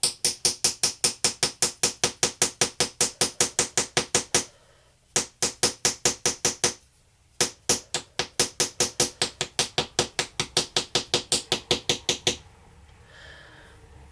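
Small hammer tapping rapidly and steadily at a treasure-dig block, about five taps a second, in three runs with two short pauses, chipping the block away to free the buried piece.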